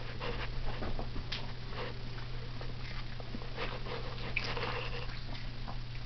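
Chihuahua playing with a white bag hanging from a bedspread: scattered rustling and scuffling with short dog noises, over a steady low hum.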